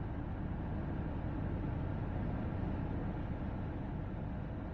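A tanker truck and a car running at speed along a highway: a steady low engine and road rumble that swells slightly and eases.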